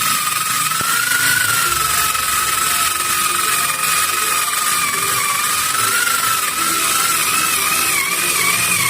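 Cordless electric screwdriver's small motor running continuously: a steady high whine over gear hiss, its pitch wavering slightly, with faint background music.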